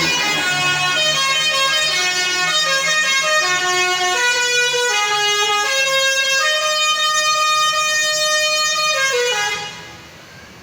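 Intercity bus's multi-tone telolet horn playing a melody, several horn tones stepping from note to note about every half second to a second, then cutting off suddenly near the end.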